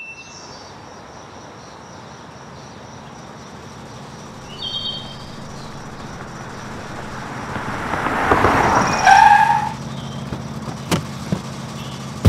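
Opel estate car driving up over several seconds, getting louder, with a short squeal as it pulls up about nine seconds in. Two sharp clicks follow near the end.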